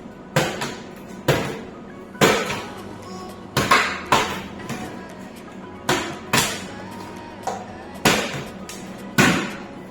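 About nine sharp knocks at irregular intervals, each with a brief ring, like hard objects set down forcefully on a table during a tic-tac-toe game, over faint background music.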